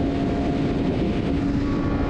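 Sport motorcycle engine holding a steady note at speed, under a continuous rush of wind noise.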